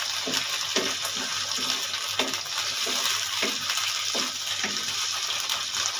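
Cut okra sizzling steadily in hot oil in a nonstick wok, with a wooden spatula scraping and tapping through it about twice a second as it is stir-fried.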